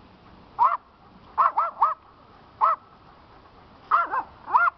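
A small dog barking in short, high yaps, about eight in all. They come in clusters: one, then three in quick succession, then one more, then three near the end.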